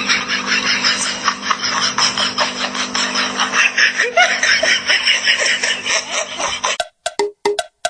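People laughing hard and continuously. About a second before the end it gives way to a quick series of short, evenly spaced tones, about four a second.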